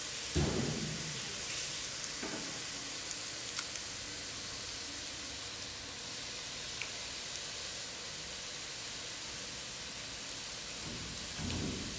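A steady, even hiss, with a low thump about half a second in and a longer low rumble near the end; a few faint ticks in between.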